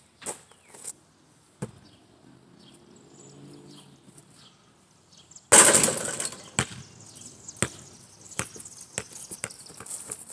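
A basketball strikes the backboard and rim of a portable hoop with a loud clang about five and a half seconds in. It then bounces on the ground several times, the bounces coming quicker as it settles. A few light knocks come in the first two seconds.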